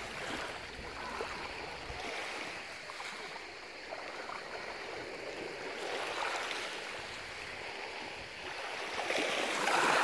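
Small waves lapping on a pebble beach, water washing in and out over the stones. A slightly bigger wave washes in louder near the end.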